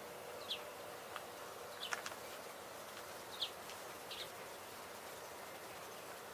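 Outdoor ambience: a few short, high, downward-sliding bird calls over a steady background hiss.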